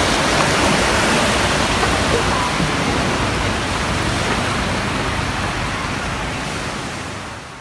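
Small waves breaking and washing up a sandy shore: a steady rushing noise that fades down near the end.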